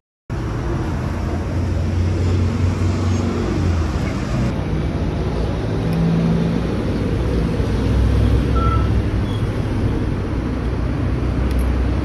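Steady street noise of traffic, with a strong low rumble and a background hiss, starting suddenly about a third of a second in.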